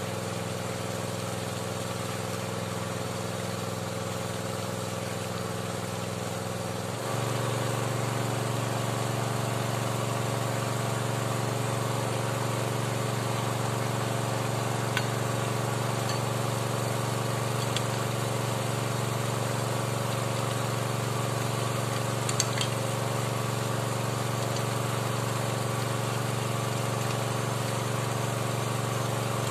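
Small engine driving a water pump, running steadily to force water down the drill pipe of a hand-turned bored well. The engine gets louder about seven seconds in, and a few faint clicks come later.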